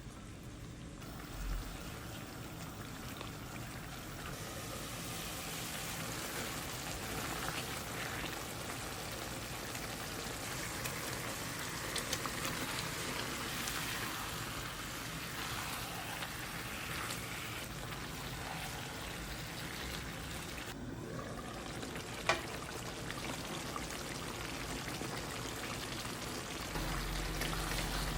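Food frying in a pan, a steady sizzling hiss, with one sharp tap about 22 seconds in.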